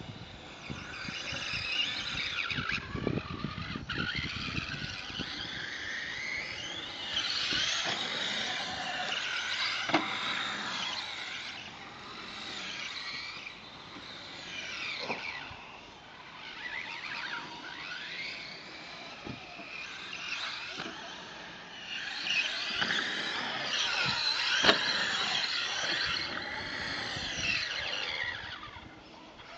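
Traxxas Summit RC truck's Turnigy 2400KV brushless motor and drivetrain whining high, the pitch rising and falling as the throttle is worked, with a few sharp knocks from the truck hitting the ground.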